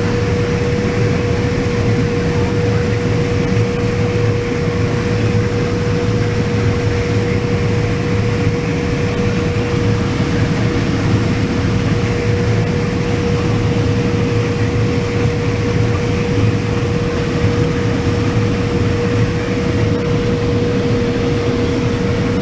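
Combine harvester running steadily while harvesting corn: an even low engine drone with a constant high hum running through it.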